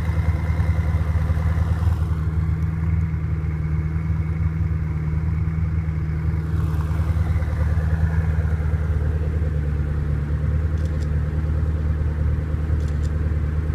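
Koenigsegg One:1's twin-turbo V8 idling steadily, a deep even hum with a light mechanical clatter over it.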